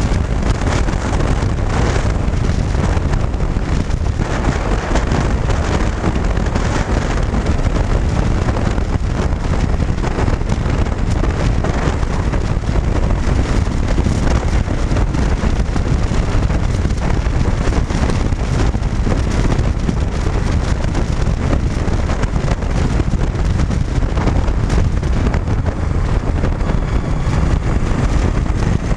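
A cruiser motorcycle travelling at steady road speed, heard as a continuous wind rush buffeting the bike-mounted microphone, with the engine and tyre noise underneath.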